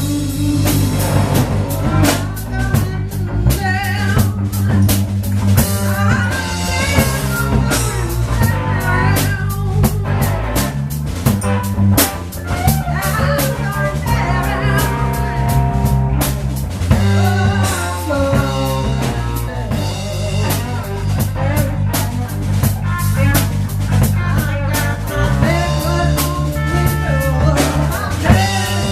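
A blues band playing live: a drum kit keeps a steady beat under a bass line, with a wavering, bending melody line on top that may be lead guitar.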